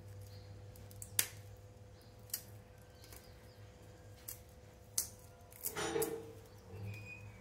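Garlic cloves being peeled by hand with a small kitchen knife: a few sharp, separate clicks as the papery skin is nicked and snapped off, and a longer rustle about six seconds in, over a faint steady hum.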